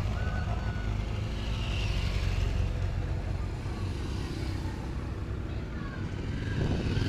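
Motorcycles passing one after another at low speed, among them a BMW RT touring bike with its boxer-twin engine, followed by a cruiser. The engine sound swells as each bike goes by, and again near the end as the next one comes up.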